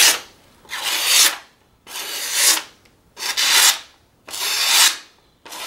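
A freshly sharpened carbon-steel knife slicing through a sheet of paper to test the edge: a crisp rasping hiss with each stroke, five strokes about a second apart.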